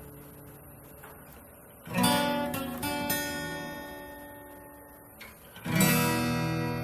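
Yamaha FX315 acoustic-electric guitar strummed in chords: a chord fading out, then a new chord strummed about two seconds in and another near the end, each ringing and slowly dying away.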